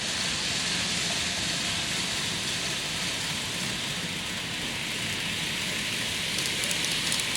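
N-gauge model train running along the layout track: a steady, even rolling noise of wheels and motor.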